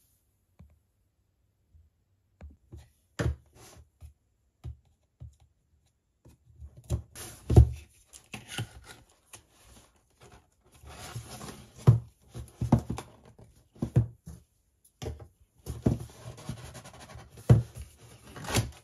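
Cardboard headset packaging being handled: a grey cardboard sleeve is slid off a box, with scraping and rubbing of cardboard and several knocks and thumps of the box against the desk. It starts after a quiet couple of seconds; the loudest thumps come about seven seconds in and just before the end.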